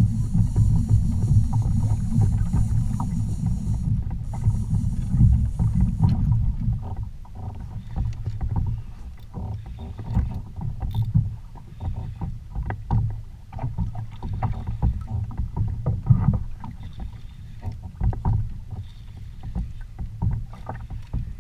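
Water slapping and sloshing against a kayak hull. For the first six seconds a heavy wind-like rumble buffets the microphone, then it drops away, leaving a run of small sharp ticks and splashes.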